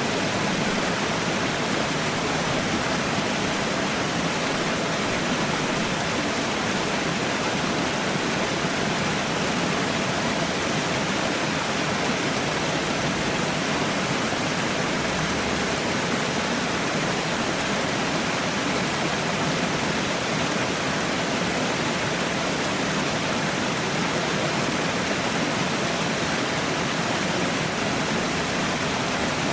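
Falling water, a waterfall or cascade, rushing steadily and evenly without a break or change.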